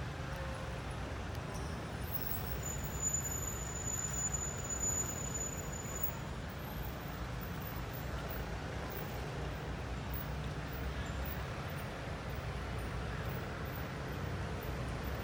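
Steady low background rumble, with a thin high-pitched whine lasting a few seconds near the start.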